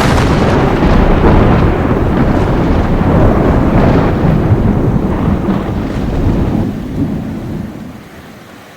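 Thunder rumbling loudly, with rain falling, the rumble dying away over the last couple of seconds.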